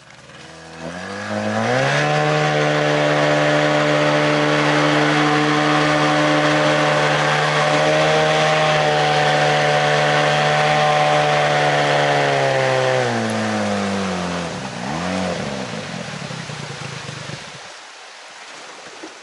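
Water-jet outboard motor on an inflatable boat revving up about a second in and running steadily at speed for about ten seconds. Near the end it throttles back, dips and rises once, then cuts off.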